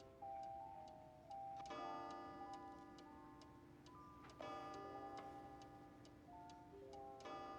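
Quiet soundtrack music: a slow chiming melody with a fuller chord struck about every three seconds, over a steady ticking like a clock at about two ticks a second.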